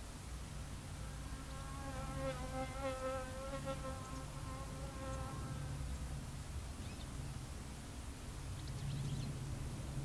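A flying insect buzzing close by, swelling in about a second in and fading away by about six seconds in. A steady low rumble runs underneath.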